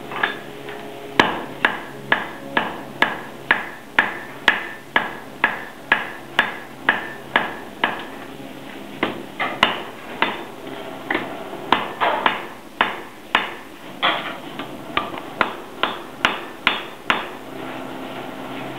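Blacksmith's hammer striking metal on an anvil, about two ringing blows a second, with a short pause about eight seconds in and the blows stopping shortly before the end.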